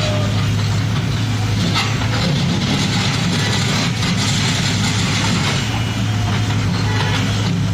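A heavy engine running steadily, with a constant low hum.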